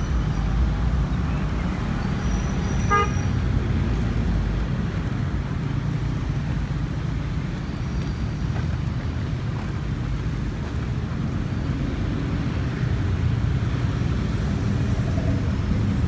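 Outdoor rail-yard ambience: a steady low rumble of distant engines and traffic, with one short horn toot about three seconds in.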